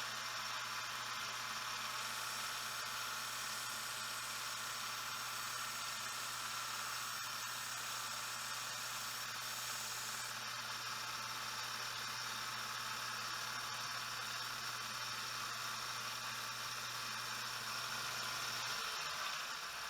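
Wilton belt sander running with a fine-grit belt, a steady hiss as a knife edge is sharpened on it. The motor's low hum drops out near the end.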